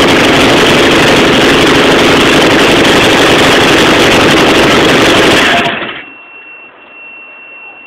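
VW camper's air-cooled flat-four engine running loudly and steadily on a test run, out of the van. About six seconds in it stops and the sound dies away within half a second.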